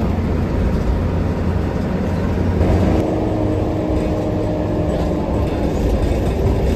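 Cabin of a Hino AK8 diesel bus on the move: steady engine and road rumble, with a steady engine hum coming in about two and a half seconds in.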